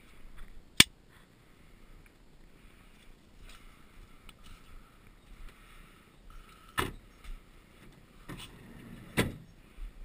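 A sharp click about a second in, then two heavier thumps in the second half, the second near the end: the Fiat Doblo van's passenger door being shut.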